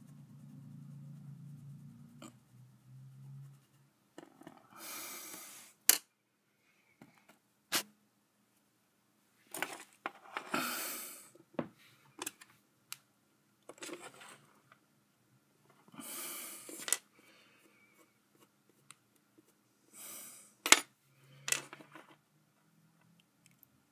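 Handling noises at a craft table: sharp clicks of small tools and pieces set down or tapped on the tabletop, between short hissing rushes, with a faint low hum at the start and near the end.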